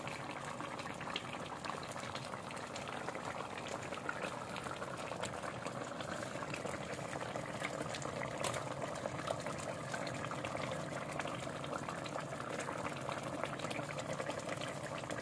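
Fish curry simmering in an aluminium pot on a gas stove: a steady bubbling, with many small pops from bursting bubbles.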